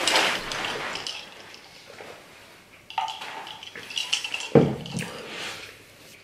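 Sipping a drink through a straw from a glass mason jar, then the jar set down on the table with a knock about four and a half seconds in.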